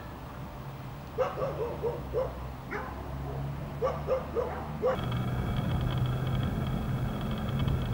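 A dog barking in quick runs of short yapping barks, several runs a second or so apart. About five seconds in, a steady low hum with a faint high whine starts underneath.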